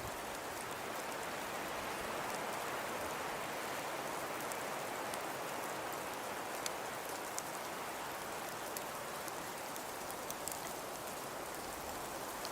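Falling-snow ambience: a steady, even hiss with scattered light ticks of flakes or ice grains striking a surface.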